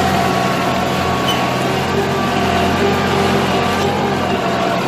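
Tractor engine running steadily under load while pulling a disc harrow through the soil.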